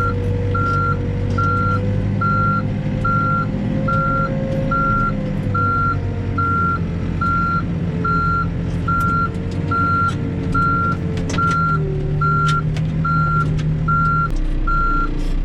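Backhoe's backup alarm beeping steadily, about one beep every 0.6 s, over its diesel engine running with the engine note shifting as the machine moves, and a few sharp clanks partway through.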